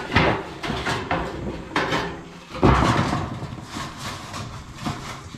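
Rusty corrugated iron roofing sheets clanking and scraping as they are laid and shifted into place, with a few sharp knocks, the loudest nearly three seconds in.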